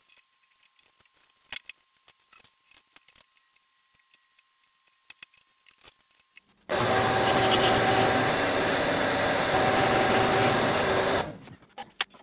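Light clicks and taps of tooling being handled at a bowling-ball drill press. Then the drill press and its dust-extraction vacuum run with a loud, steady whir for about four and a half seconds, starting and stopping abruptly.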